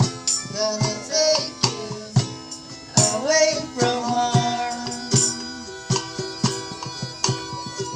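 Acoustic jam: strummed ukuleles and a hand drum beating a steady rhythm, with a harmonica playing held notes that bend in pitch about three seconds in.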